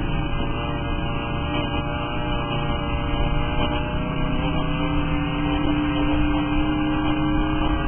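Off-road race vehicle's engine heard from inside its roll-caged cockpit, running steadily under way with a droning tone that climbs slightly in pitch past the middle.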